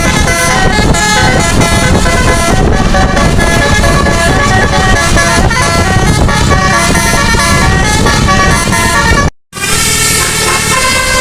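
Nine-trumpet telolet musical air horn on a bus playing a tune of held notes that change in steps, loud over a low rumble. It breaks off for a moment about nine seconds in, then carries on.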